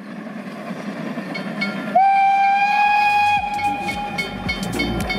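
Narrow-gauge steam locomotive working a train, its exhaust rumbling. About two seconds in, the steam whistle sounds one long blast with a slight rise in pitch at the onset, then fades away.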